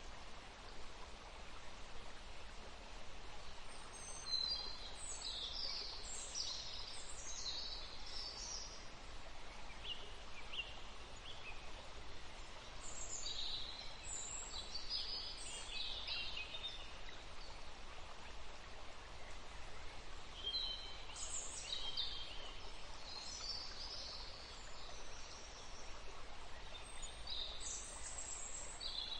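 Forest ambience: small birds chirping in short high clusters every few seconds over a steady background hiss.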